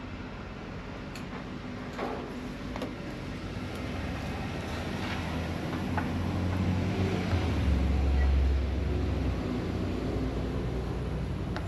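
A low rumbling hum that builds slowly, peaks about eight seconds in and then eases off, with a couple of light clicks near the start.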